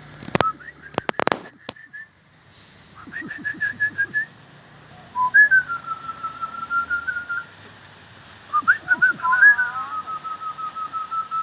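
Myna birds giving runs of quick, repeated whistled notes that step and glide in pitch, in three bouts. A few sharp knocks come in the first two seconds.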